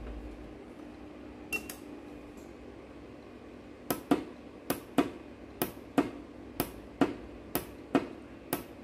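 Dental-chair DC solenoid valve clicking as its coil is switched on and off by tapping the supply wire: the plunger snaps open and drops back shut. There is a single click, then from about four seconds in sharp clicks come in pairs roughly once a second, showing the cleaned and reassembled valve works.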